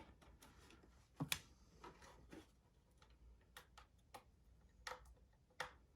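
Faint, irregular clicks and taps of fingernails picking at the small plastic protective screen on a plastic alarm clock, trying to peel it off.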